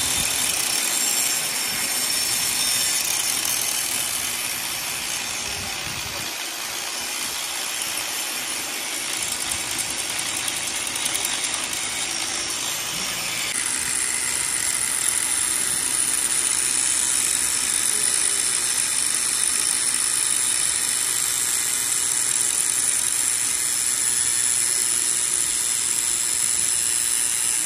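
Steady hissing workshop machine noise, which changes character abruptly about halfway through.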